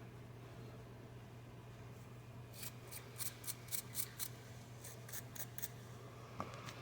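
Small wire brush scrubbing a metal switch contact inside a washer door lock, about a dozen short quick scratchy strokes a few seconds in, to shine up the contact.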